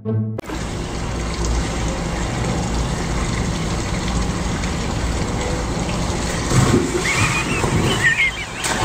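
Steady rush of water from a pool's spill-over water feature. About six or seven seconds in comes a splash and thrashing in the pool as a man tumbles off a giant inflatable duck, with short high squeals just after.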